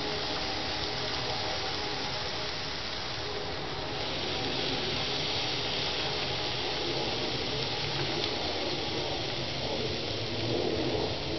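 Venison backstrap, kielbasa and chicken sizzling on a hot grill, a steady hiss that grows a little brighter about four seconds in. A dove cooing joins near the end.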